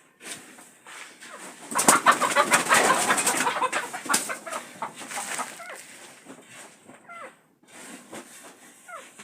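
Domestic chickens clucking, with short calls that slide in pitch, over a dense burst of clicking and rustling that is loudest from about two to five seconds in.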